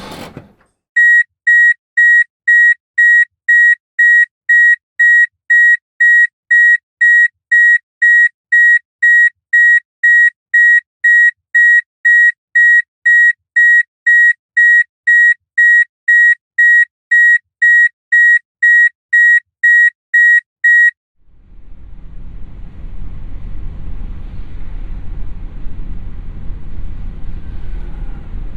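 Electronic car warning beeper sounding a steady, high single-pitched beep about twice a second for some twenty seconds, then stopping. A low rumble starts near the end.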